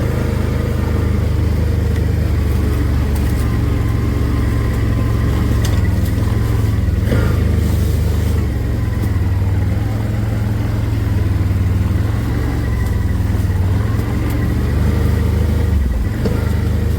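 Engine of a small off-road vehicle running steadily while being ridden, with a slight change in engine note near the end.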